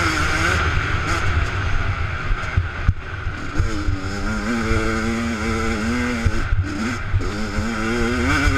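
Small minibike engine revving hard as it is ridden along a dirt trail, its pitch repeatedly climbing and dropping as the throttle and gears change. A low rumble of wind on the helmet camera's microphone runs underneath.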